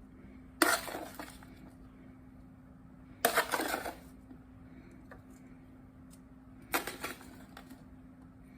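A metal utensil clinks and scrapes against dishes three times, short clattering bursts, as roasted vegetables are spooned into serving bowls.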